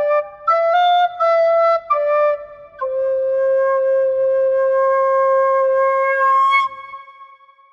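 Music: a solo flute-like melody of short stepped notes, then one long held note that stops a little before the end and dies away.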